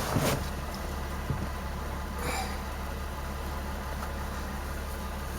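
Steady low background hum, with faint brief handling noises of tools and trim near the start and a soft rustle about two seconds in.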